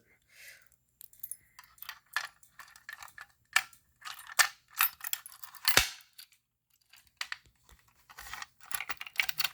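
A Simplex B key on a keyring jangling and clicking as it is used to reset a fire alarm device: a string of small metallic clicks and rattles, with one sharper knock about six seconds in.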